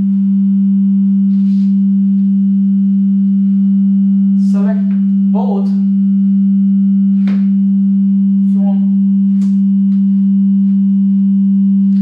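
Steady 196 Hz sine test tone from a signal generator, played through a loudspeaker to measure a tunable Helmholtz-resonator absorber panel, with a few brief knocks partway through.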